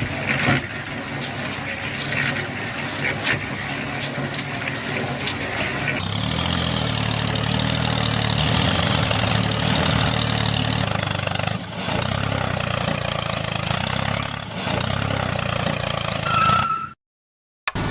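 Clicking and rattling for a few seconds, then a steady motor or engine hum from about six seconds in. The sound cuts out completely for a moment near the end.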